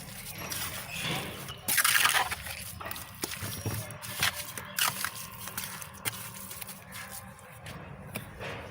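Wet cement mortar being worked: a loud scraping, sloshing rush about two seconds in, then several sharp knocks.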